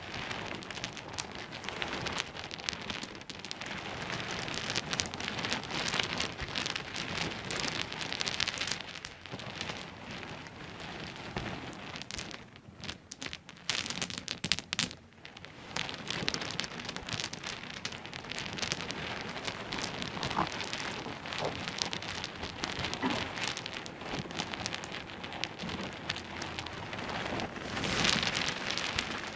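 Small pebbles clicking and clattering against each other in a dense, continuous patter of tiny knocks, with short lulls about twelve and fifteen seconds in.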